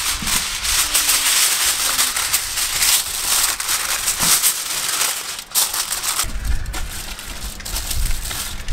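Aluminium foil crinkling and crackling as sheets are spread out and smoothed flat by hand, with many sharp little crackles. A low rumble joins in for the last couple of seconds.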